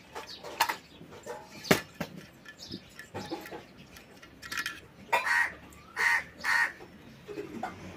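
Small sharp metal clicks as a screwdriver works the screw terminals on an electric iron's thermostat plate, followed by several short, harsh bird calls about five to six and a half seconds in.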